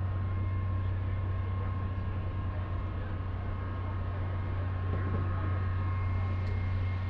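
A steady low mechanical hum with a faint, steady higher whine above it, unchanging in pitch or level.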